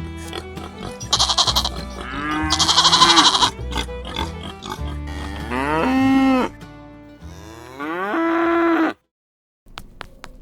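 Music mixed with a series of livestock-like animal calls, each a short pitched call that bends up or down. Near the end the sound cuts out briefly, then a run of quick, evenly spaced clicks begins.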